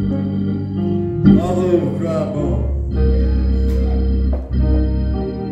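Church organ playing sustained chords that change every second or two, with a deep bass note coming in about halfway through.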